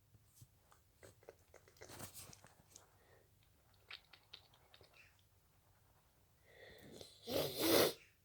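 A person with a runny nose sniffling: soft wet clicks and short sniffs through the nose, then one loud, forceful half-second rush of air through the nose near the end.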